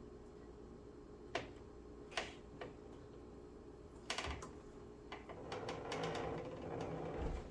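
Hand work on a car door's plastic trim parts: a few separate sharp clicks and taps, then a quick cluster of clicks, followed by about two seconds of rustling and scraping near the end.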